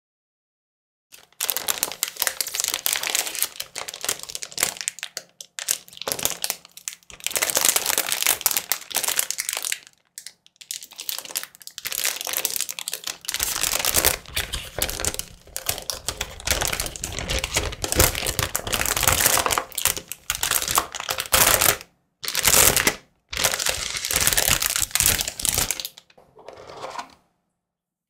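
Clear plastic bag crinkling and rustling as it is handled and pulled off a keyboard box, in bursts with a few short pauses.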